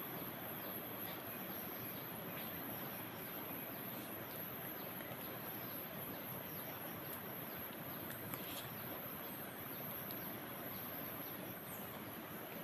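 Steady outdoor background hiss with a continuous high-pitched insect trill, and a few faint clicks.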